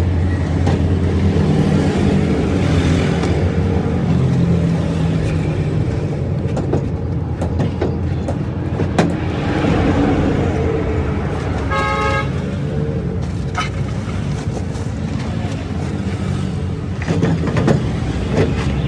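An engine runs steadily throughout. A vehicle horn toots briefly about two-thirds of the way through, and a few sharp knocks sound in between.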